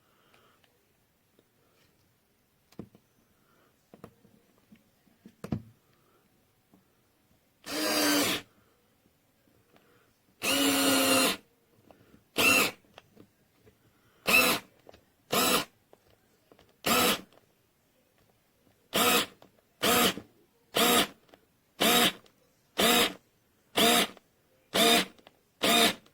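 Kiprim 4V cordless electric screwdriver motor whirring in short trigger bursts: after a few faint clicks, two runs of about a second each, then a string of brief bursts about once a second.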